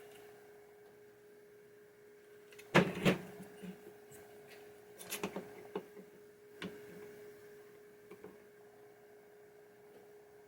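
Small metal parts of a pinball slingshot assembly clicking and knocking as they are handled and adjusted by hand: a few separate sharp clicks, the loudest about three seconds in, over a steady faint hum.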